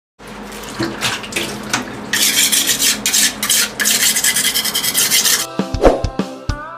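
Quick rasping, scraping strokes from a hand-held kitchen tool, dense and rapid in the middle. About five and a half seconds in it gives way to intro music with chiming, bell-like tones.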